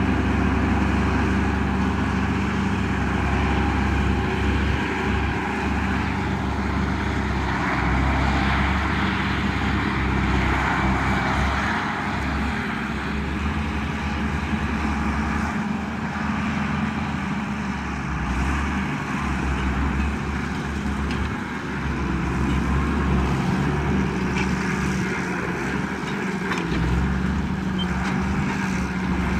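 Diesel engine of a Track Marshall crawler tractor running steadily under load while ploughing, with a constant low drone that wavers slightly in pitch.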